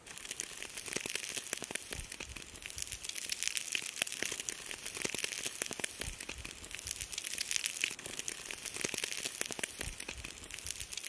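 Bacon sizzling in a pan over campfire coals: a dense, steady frying hiss full of small crackles and pops.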